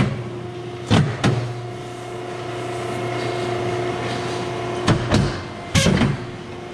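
Power guillotine paper cutter: its motor hums steadily, with sharp clunks as the clamp and blade cycle on a stack of paper, at the start, about a second in and a few more near the end.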